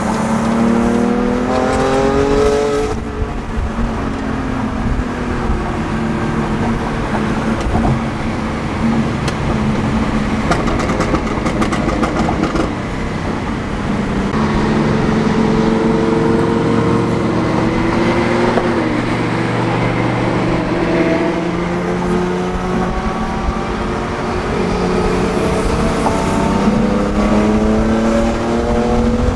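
Car engine accelerating: its pitch climbs over the first three seconds and drops at a gear change, holds fairly steady through the middle, then climbs again near the end.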